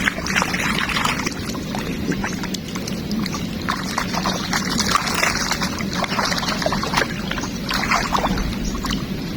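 Water splashing and sloshing irregularly, in short uneven bursts, as in shallow flood water.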